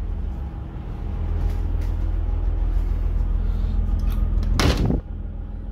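A steady low mechanical hum, with one short, loud sliding rasp about four and a half seconds in, after which the hum drops.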